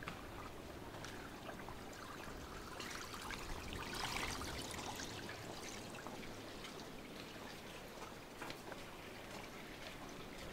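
Faint trickle of running water with small ticks and drips throughout, and a brief louder hiss about four seconds in.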